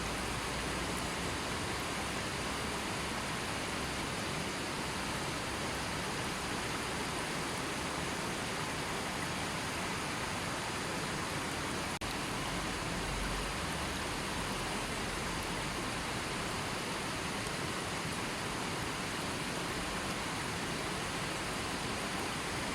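A river flowing steadily: an even, unbroken rush of water with no birds or other sounds.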